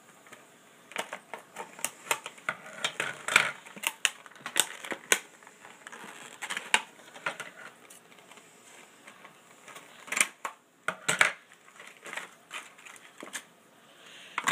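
Scissors snipping through a clear plastic blister pack, with crackles and snaps of the stiff plastic as it is bent. The sound is a run of irregular sharp clicks, thickest a few seconds in and again around ten seconds in.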